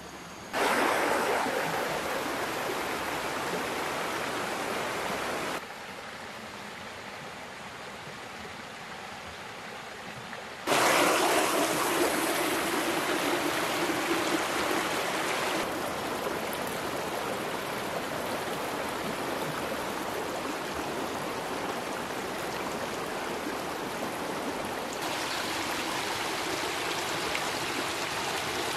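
Running water, a steady rushing flow that jumps abruptly louder or softer several times.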